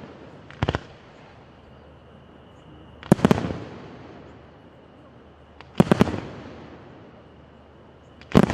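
Aerial firework shells bursting in the sky: four bursts about every two and a half seconds, each a quick cluster of sharp bangs followed by a rumbling echo that dies away. The last burst, near the end, is the loudest.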